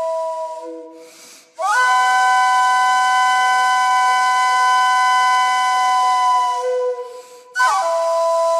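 Background music: long, held flute-like notes. One note fades away about a second in; a new note slides up into place about a second and a half in and holds steady for about six seconds, then breaks off and another slides in near the end.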